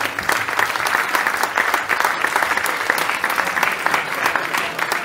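Audience applauding: a steady round of many people clapping.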